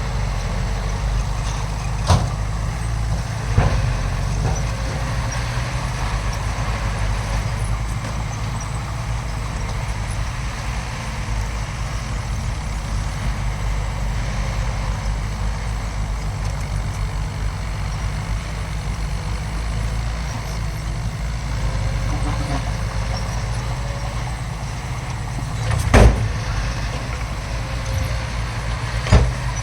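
Heavy diesel earthmoving machinery running steadily with a low engine rumble, broken by a few sharp knocks, the loudest about 26 seconds in.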